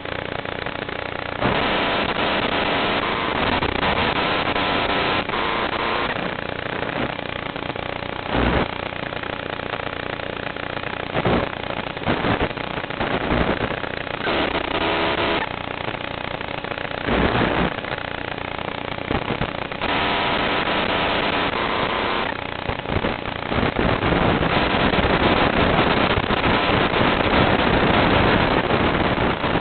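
Hiss and static carried on the audio channel of an analog FPV video link, with a faint buzz underneath. It swells and fades, with brief louder crackling patches and a louder stretch near the end.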